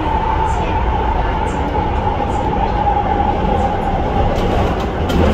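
AREX commuter train running, heard from inside the passenger car: a steady loud rumble with a high whine that drifts slightly lower, and a few light clicks near the end.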